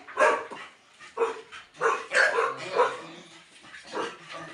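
American bully dogs barking repeatedly, a string of short loud barks.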